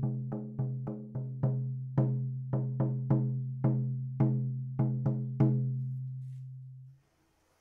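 14-inch shaman frame drum struck in a steady beat, each stroke ringing with a deep, even tone. The strokes come quickly at first and then slow to about one every half second; after the last one the drum rings on and is suddenly stopped about seven seconds in.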